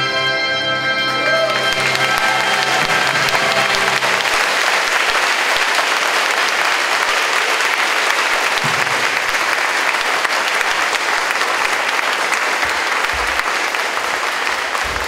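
Audience applauding steadily, over the end of a piece of band music that fades out in the first few seconds.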